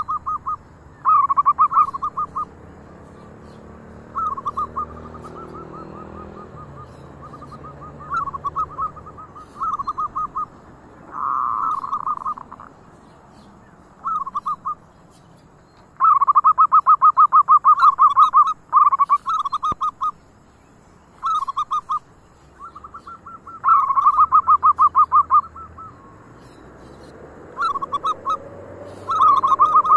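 Zebra doves (perkutut) cooing: repeated runs of rapid, rattling staccato coos, some short and some long, with one bird answered by others. The longest, loudest run comes about halfway through.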